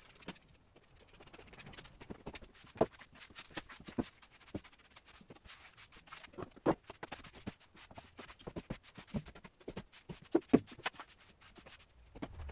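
Push broom sweeping the bare plywood floor of a van's cargo area, with footsteps and irregular knocks on the hollow floor.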